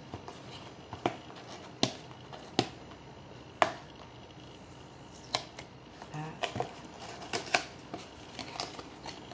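Paperboard retail box being opened by hand: tape picked and peeled from an end flap and the flap pulled open. It makes separate sharp clicks and crackles a second or so apart, then a quicker run of crackles in the second half.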